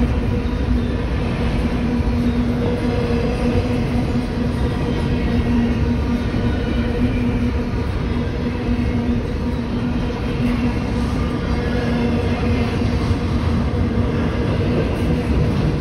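Freight train cars rolling steadily past at a grade crossing. There is a continuous rumble and rail noise with a steady underlying hum.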